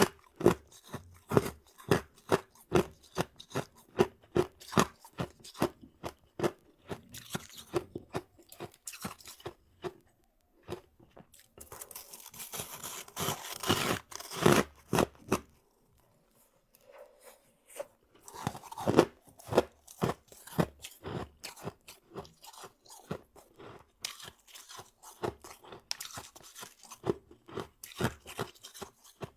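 Freezer frost (powdery snow ice) being chewed close to the microphone: crisp crunches about two a second. About twelve seconds in, a longer, louder stretch of dense crunching comes, then a brief pause before the steady chewing resumes.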